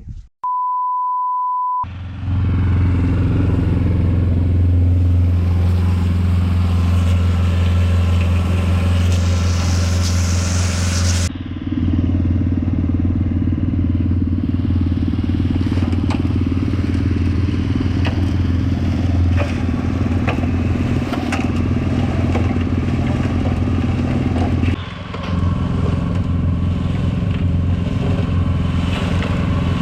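A brief steady beep about half a second in, then an engine running steadily at a constant speed, with scattered clicks and rattles, as cement is mixed.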